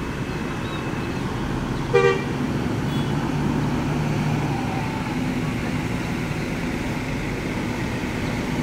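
Large coach bus's diesel engine running as the bus pulls out and turns, a steady low rumble, with one short horn toot about two seconds in.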